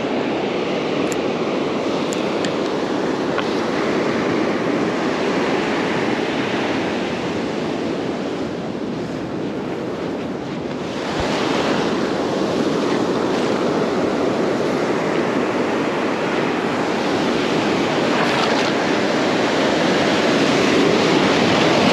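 Ocean surf breaking and washing up the beach, a steady rushing wash that grows louder about halfway through.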